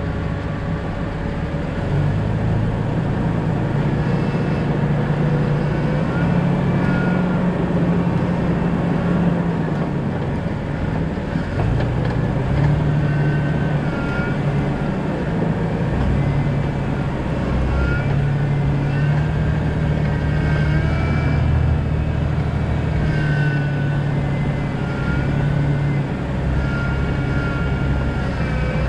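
2000 Jeep Cherokee XJ driving on a backcountry road, its engine and road noise steady, with the engine note stepping up and down as speed changes.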